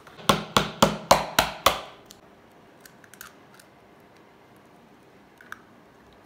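An egg knocked six times in quick, even succession against a hard edge to crack its shell, followed by a few faint clicks as the shell is pulled apart over a plastic bowl.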